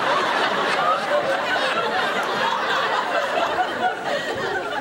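Studio audience laughing and whooping after a sitcom punchline: a dense wash of many voices that eases a little near the end.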